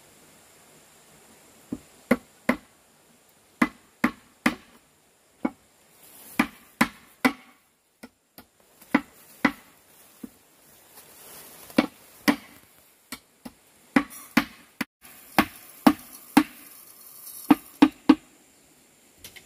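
A hand tool striking wood over and over: about thirty sharp knocks at an uneven pace, often in quick pairs.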